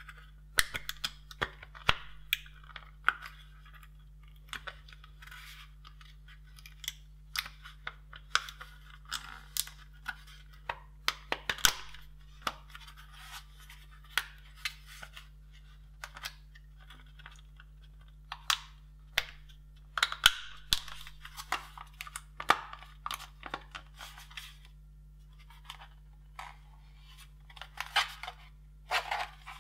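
Plastic case of an ASUS A42-G750 laptop battery pack being handled and pressed together: irregular sharp clicks, creaks and rustles in clusters, over a faint steady mains hum.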